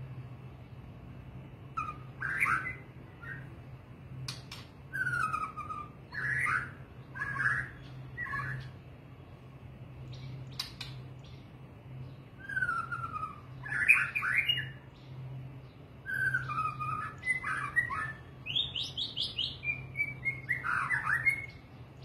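White-rumped shama singing in separate short phrases of clear gliding whistles and quick notes, with short pauses between them, over a steady low hum.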